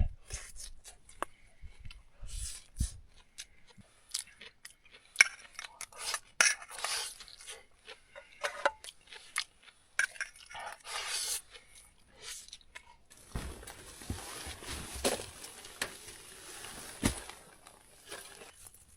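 Eating a crunchy cucumber and egg stir-fry: chewing and crunching, with many short clicks and scrapes of an eating utensil against the pot. About two-thirds of the way in it gives way to a steadier noise with a few low thumps.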